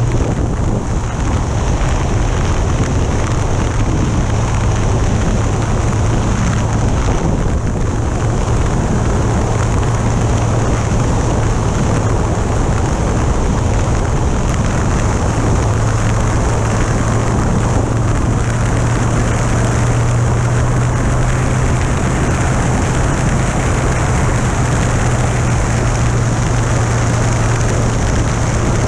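Yamaha FJR1300's inline-four engine running at steady cruising speed, a constant low hum under loud wind and road rush on a bike-mounted action camera.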